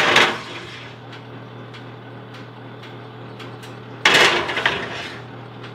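Glass pie dishes scraping and sliding onto a metal oven rack: one right at the start and a second about four seconds in, over a steady low hum.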